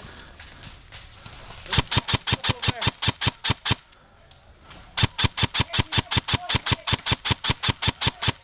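Airsoft gun firing in two rapid strings of shots, about six or seven a second; the first starts about two seconds in and the second, longer one about five seconds in.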